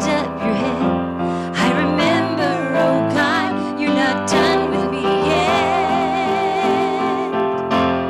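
A woman singing a slow solo with piano accompaniment, her voice with a wide vibrato, holding one long note a little past the middle.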